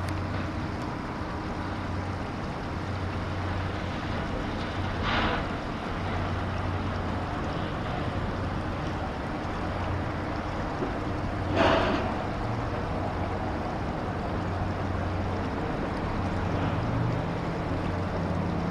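Two short, harsh seagull calls, about six seconds apart, the second louder, over a steady rush of creek water and wind with a low hum.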